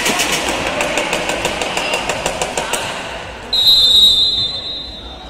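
A fast, even rattling clatter over general hall noise stops a little under three seconds in; about half a second later a referee's whistle gives one long steady blast, lasting nearly two seconds.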